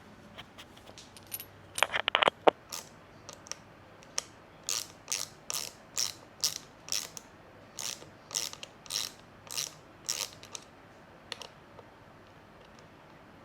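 A ratchet mechanism worked in quick strokes: a cluster of sharp clicks, then a run of short ratcheting bursts about two a second that stop a few seconds before the end.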